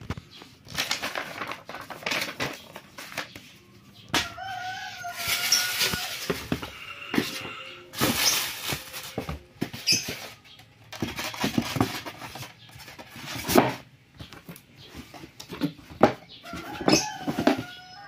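Cardboard and paper rustling and scraping in repeated bursts as a box and its paper inserts are handled. A bird chirps in the background about four seconds in and again near the end.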